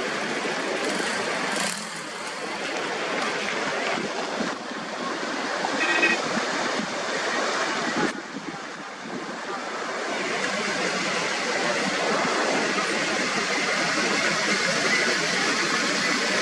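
Water rushing out through a dam that has burst under heavy rain: a steady, loud rush of floodwater that drops briefly twice.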